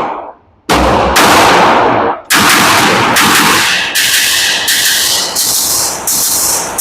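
9mm Glock 19X pistol fitted with a Radian RamJet barrel being fired: a quick pair of shots (a double tap) about a second in, then a steady run of further loud shots with long echoing tails.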